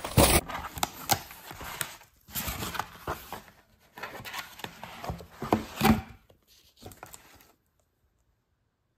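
Corrugated cardboard mailer being opened and handled: irregular rustling, scraping and knocking of cardboard flaps, with the crinkle of a plastic record sleeve as a 7-inch vinyl picture disc is slid out. Loudest right at the start, stopping after about seven seconds.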